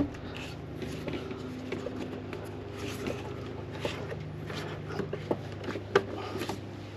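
Rubber coolant hose being worked onto its fitting by hand: scattered light rubbing, scraping and small clicks, over a steady low hum.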